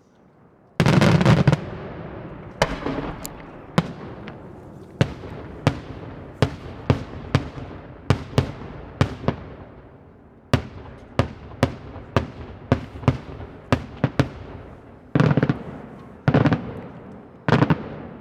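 Daytime fireworks going off: a heavy blast about a second in, then a run of sharp single bangs, each echoing, coming about one or two a second and growing denser. Near the end come three clusters of louder, rapid-fire bangs.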